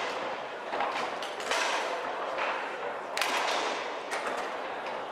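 Foosball play: the ball and plastic rod men knocking sharply against the table, several cracks with an echoing tail, the loudest a little after three seconds in.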